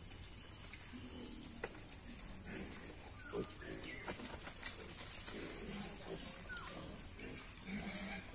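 Piglets grunting softly now and then as they root and forage through wet leaves and grass, over a steady high hiss.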